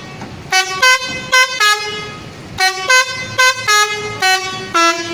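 Telolet bus horn playing a tune of short, loud notes that change pitch, in two phrases with a short pause about two seconds in.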